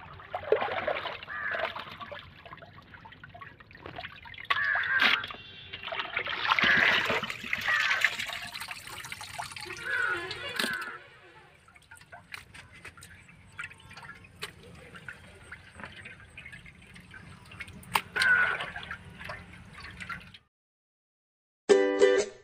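Water sloshing and splashing in irregular bursts as raw chicken pieces are washed and stirred in a large aluminium pot, with hands lifting wet pieces out. Near the end it stops, and plucked-string music starts.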